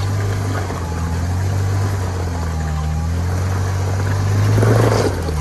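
Jeep Wrangler's engine pulling under load as the Jeep crawls up a steep, slick rock slab. It rises in pitch and loudness about four and a half seconds in as the throttle is given more.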